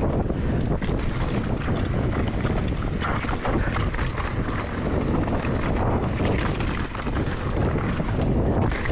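Wind buffeting an action camera's microphone as a mountain bike rides fast down a dirt trail, with the rumble of knobby tyres on dirt and frequent rattles and knocks from the bike over roots and rocks.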